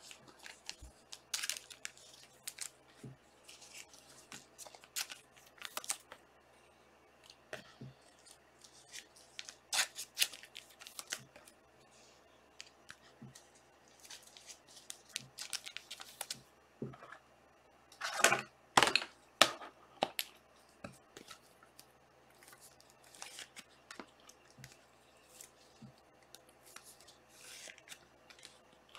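Trading-card packs being torn open and the cards handled: scattered rustling and tearing of pack wrappers and card stock, loudest in a crinkly burst about two-thirds of the way through.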